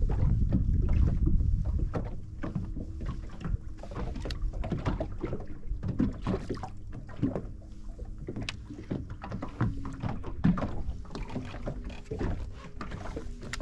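Small waves slapping irregularly against the hull of a drifting rigid-inflatable boat, with wind buffeting the microphone in the first couple of seconds.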